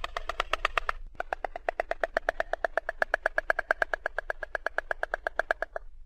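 Stork bill-clattering: a fast, even rattle of hollow wooden clacks, about ten a second, with a brief break about a second in, stopping just before the end.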